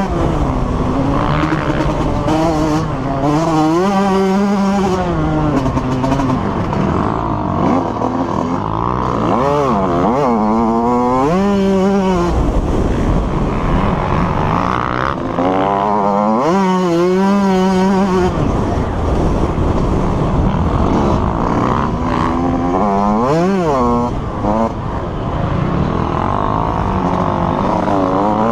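Motocross dirt bike engine, heard from the onboard camera, revving up and falling back over and over as the rider opens and closes the throttle around the track, with sharp rises in pitch when it accelerates hard.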